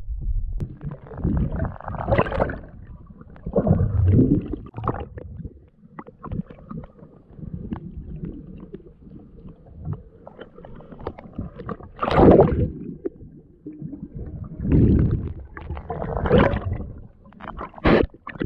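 Muffled underwater river sound through a waterproof camera housing: irregular gurgling, rushing bursts of moving water, with a few sharper knocks near the end.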